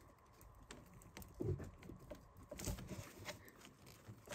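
Faint, scattered small clicks and rubbing from fingers working a plastic quick-connect fitting on a coolant hose, squeezing its release tabs to free the hose.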